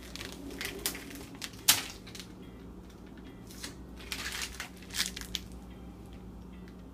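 Clear plastic application tape rustling and crinkling as it is handled and crumpled, in short bursts. The sharpest crackle comes just under two seconds in, and more rustling follows around four to five seconds.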